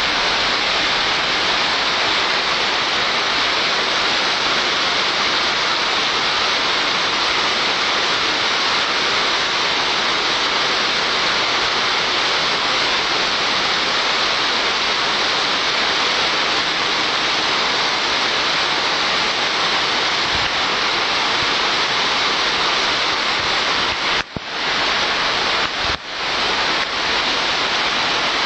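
Heavy rain pouring down: a steady, dense hiss of a torrential downpour, briefly cutting out twice near the end.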